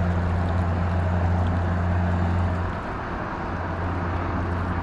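A small boat's motor running with a steady low hum, easing off a little about halfway through.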